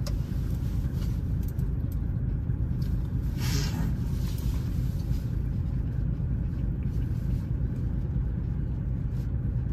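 Truck's diesel engine idling steadily, with a short hiss about three and a half seconds in.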